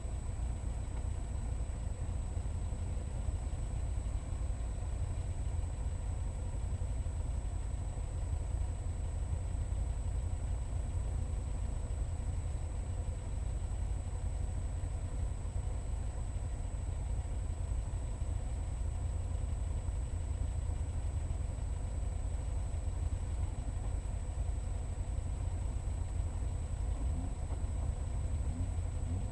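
The 1963 Austin Healey Sprite's Ford 2.0-litre Zetec four-cylinder engine idling steadily while the car waits at the start, a low continuous rumble.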